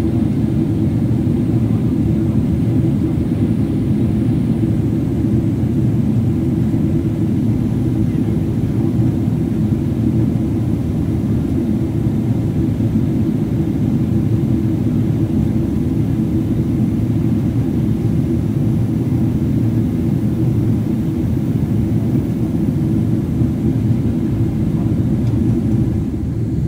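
Steady low rumble of airliner cabin noise, the engines and airflow heard from inside the cabin, as the plane descends on approach. The noise holds even throughout, easing slightly near the end.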